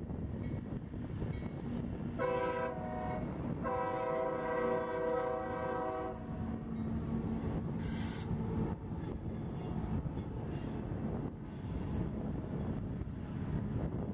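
Freight train rolling past, with the steady rumble of hopper cars on the rails. The locomotive's air horn sounds a chord in one short blast, then a longer blast a second later. From about halfway through, thin high-pitched wheel squeal comes from the cars.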